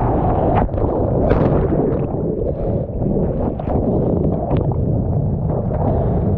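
Strong wind rumbling on the microphone, with seawater churning and splashing as breaking surf washes around it; a few sharp splashes stand out, one about half a second in and one just after a second.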